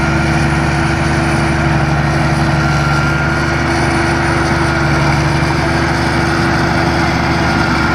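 Combine harvester's diesel engine running steadily at working speed, with the even hum of the machine under way and no change in pitch.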